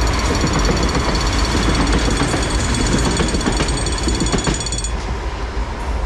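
Sarmiento line electric commuter train passing at speed close by, its wheels clattering rapidly over the rails, with a steady high ringing over the noise. The ringing stops and the train noise falls away about five seconds in.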